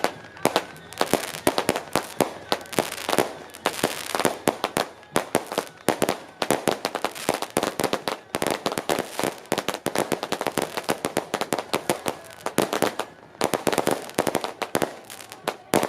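Strings of firecrackers going off in rapid, irregular bangs, densely packed throughout with a brief thinning about thirteen seconds in.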